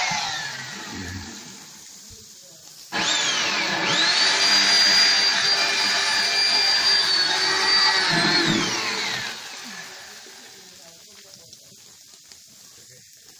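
Corded electric drill with a step drill bit, drilling into the steel grill: its motor winds down at the start, then starts up about three seconds in, runs at a steady pitch for about five seconds and winds down again.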